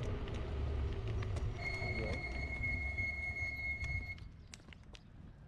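Low engine rumble of a garbage truck, with a steady high squeal lasting about two and a half seconds in the middle. The rumble falls away about four seconds in.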